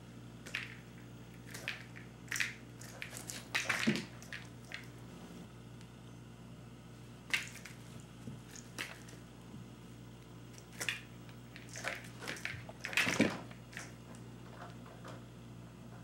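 A cat pouncing, landing and scrambling on a hard floor while batting at a feathered bungee toy: irregular thumps and scuffles, with the loudest flurries about four seconds in and again near thirteen seconds.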